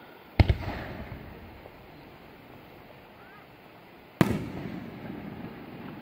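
Aerial firework shells booming twice, about four seconds apart, each loud bang followed by an echo that dies away over a second or two.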